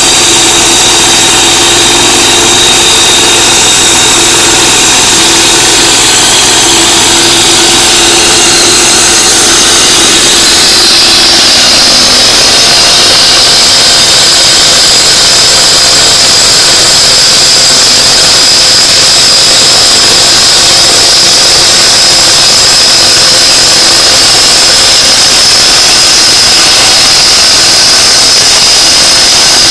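Walk-behind concrete road saw running loudly and steadily, its engine and blade giving a high whine. About ten seconds in the pitch shifts, and a higher steady whine takes over.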